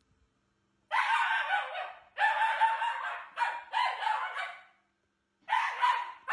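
A Shiba Inu dog giving a series of loud, high-pitched screaming cries, about five of them, each up to a second long, starting about a second in.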